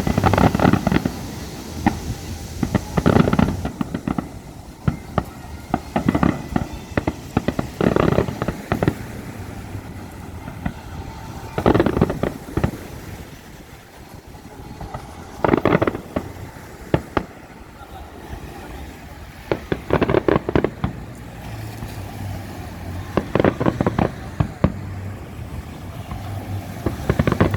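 Fireworks display: clusters of bangs and crackling bursts come every few seconds, about nine clusters in all.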